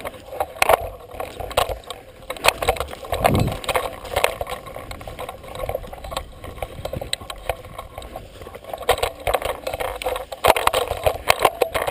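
Irregular scraping, rustling and knocking of an airsoft player crawling over sand and pushing through dry brush, with gear and rifle brushing against the gun-mounted camera; a dull thump about three seconds in.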